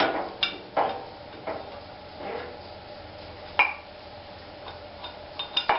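Metal parts clinking and knocking by hand during reassembly of a Cub Cadet's rear axle, as a part is fitted over the freshly installed oil seal. A handful of sharp, irregular clinks, the sharpest about halfway through and a quick cluster near the end.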